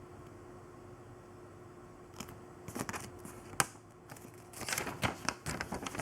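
Steady background hiss with a faint hum, then from about two seconds in a run of rustling and clicking handling noises, with one sharp click near the middle and a denser flurry of rustles near the end.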